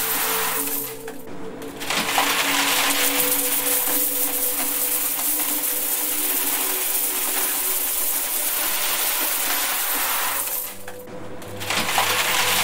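A stream of mixed coins pouring into a metal box onto a pile of coins, a continuous jingling clatter. It stops briefly about a second in and again near the end, with faint steady tones underneath.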